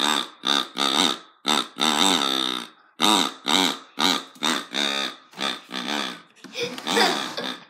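Rapid series of short, squealing oink-like sounds made through a pink pig toy held to the mouth, about two a second, each rising then falling in pitch, with one longer drawn-out squeal about two seconds in.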